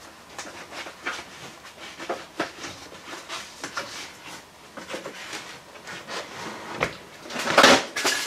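Old windscreen rubber seal crackling and tearing as the glass is pushed out of its frame, a run of irregular small cracks and clicks. Near the end comes a louder crunching crackle as a large piece breaks away.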